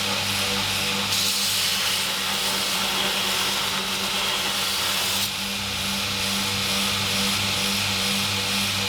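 Mains-powered electric shop machine running on steel: a steady hum with a loud hiss over it. The hiss steps up about a second in and eases about five seconds in.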